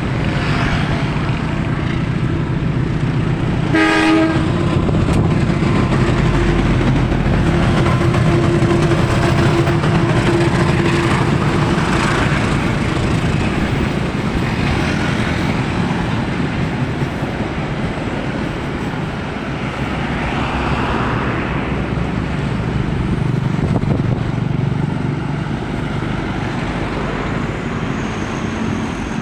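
Train running, with a steady low engine drone throughout and a short horn blast about four seconds in.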